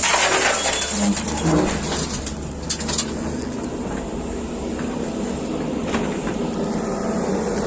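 Excavator's diesel engine running steadily, with a rush of noisy scraping over the first three seconds. A dove coos a few times about a second in.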